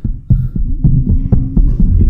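Deep, irregular throbbing thumps under a low wavering hum, like the heartbeat-style pulse of a horror sound effects track.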